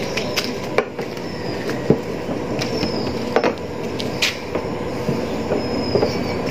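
Hands pressing and patting oiled porotta dough flat on a work surface, with a few sharp slaps and clicks, over a steady background rumble.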